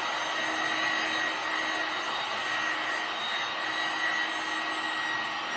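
Magnetic drill's electric motor running steadily as it bores a hole through a steel table top, with a steady whine over the motor noise.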